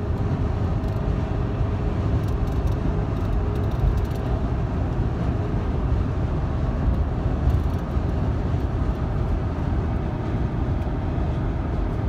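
A car driving, heard from inside the cabin: a steady low rumble of road and engine noise.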